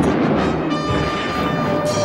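A steady, dense mechanical rumble, with background music; a held tone comes in about two-thirds of a second in.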